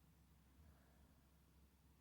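Near silence: faint steady low hum and room tone.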